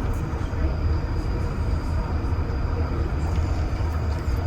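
REM light-metro train running at speed, heard from inside the car: a steady low rumble with a faint high-pitched tone above it.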